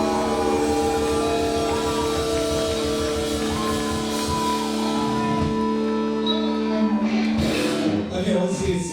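Live rock band holding a long sustained chord that rings steadily, then cuts off about seven seconds in, followed by a short burst of noisy crashes.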